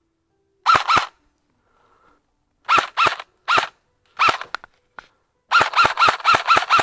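Airsoft gun firing: a pair of shots, then several single and paired shots, then a rapid string of about eight shots near the end, each a sharp crack with a short twangy ring.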